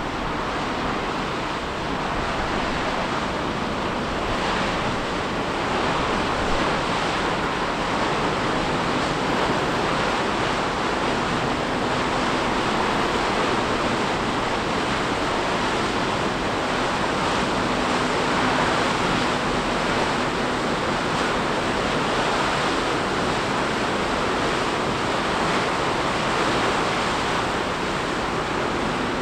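The cruise ferry M/S Baltic Princess passes close by, making a steady rushing noise of hull wash and machinery, with a faint low hum coming and going.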